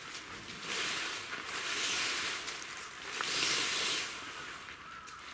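Synthetic tent rainfly rustling and swishing as it is dragged over the dome tent's inner. It comes in three pulls.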